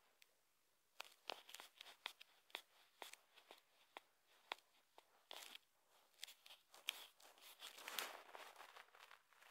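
Faint, irregular clicks and light rustles, with a longer scraping rustle about eight seconds in: handling noise of fingers tapping and sliding on a phone's touchscreen.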